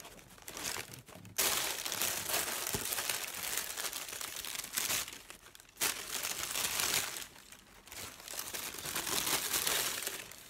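Tissue paper and plastic wrapping crinkling and rustling in the hands as a hat is unwrapped. It gets loud about a second and a half in and goes on in long stretches with short pauses.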